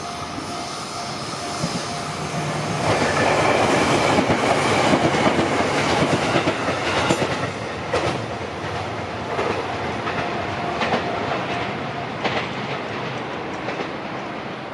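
Train on the Tokaido Line passing over a level crossing: the rumble builds to a peak a few seconds in, then the wheels clack over rail joints in a series of sharp clicks as it eases off. A steady ringing tone from the crossing's warning bell sounds under it at the start.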